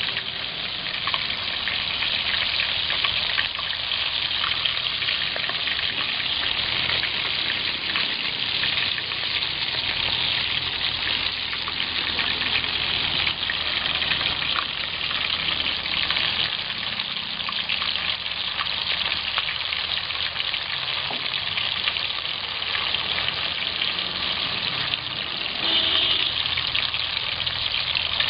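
Whole sea crabs deep-frying in a pot of hot oil: a steady sizzle full of small crackles and pops.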